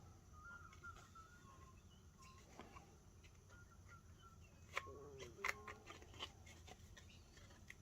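Near silence, with faint, short, high-pitched animal calls on and off and a few light clicks from cardboard game pieces being handled a little past the middle.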